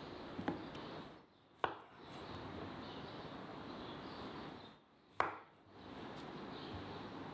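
Large kitchen knife slicing through a zucchini, the blade knocking sharply on the wooden cutting board twice, about three and a half seconds apart, over a steady background hiss.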